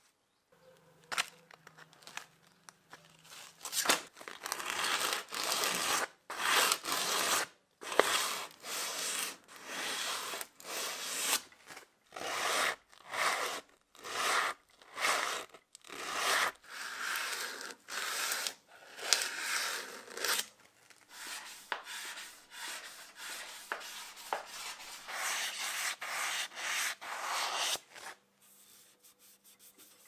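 A wooden knife handle being rubbed by hand with a cloth pad in repeated back-and-forth strokes. The strokes stop about two seconds before the end.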